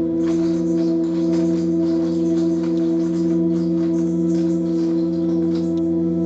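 Electronic keyboard holding a steady organ-like chord drone, with faint light taps over it.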